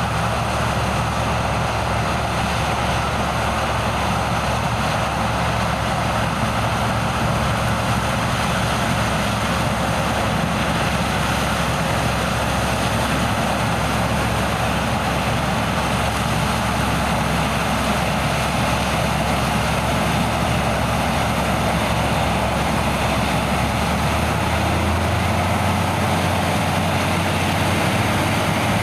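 Heavy diesel farm machinery running steadily at a constant engine speed, with its deep hum shifting slightly near the end.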